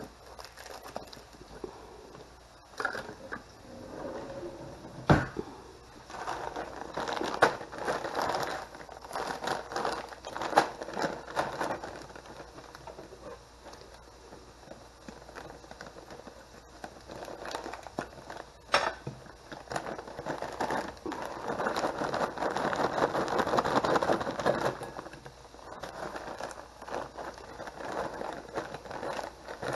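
Plastic frozen-vegetable bags crinkling and rustling as they are handled and opened, in long spells, with a couple of sharp knocks.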